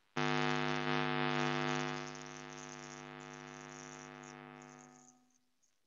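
A single sustained pitched tone, rich in overtones like a held keyboard note. It is steady for about two seconds, then drops in level and fades out about five seconds in.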